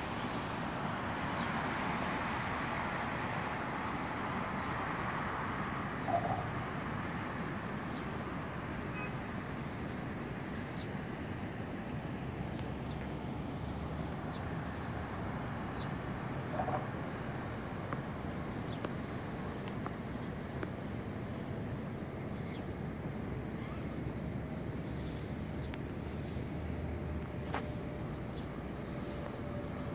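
Steady hum of distant road traffic, with a constant thin high whine over it and a couple of brief soft low sounds.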